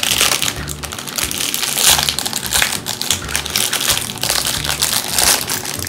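Thin plastic bag crinkling and crackling as it is worked open and handled, with background music underneath.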